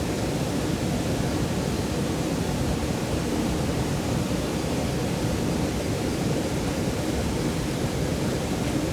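Mountain stream flowing steadily: a dense, even water noise, heaviest in the low range.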